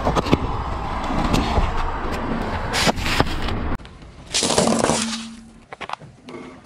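Car tyre rolling onto and crushing small objects on asphalt: a long stretch of crunching and crackling with many sharp cracks. After a brief pause comes a second, shorter crunch that fades away.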